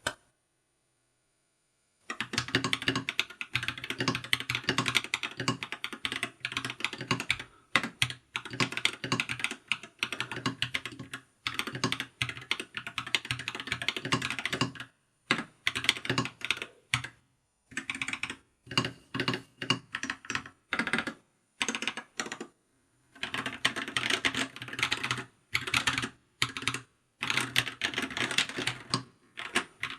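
Mechanical keyboard fitted with Akko V3 Cream Blue Pro tactile switches being typed on quickly, starting about two seconds in. A dense clatter of key presses broken by short pauses; the switches are factory-lubed and have long-pole stems that give a clacky sound.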